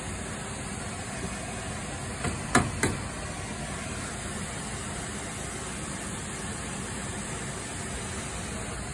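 Steady rushing air hiss from a pipe organ's wind system around its bellows reservoir, with no pipes sounding. About two and a half seconds in there is a quick pair of sharp knocks.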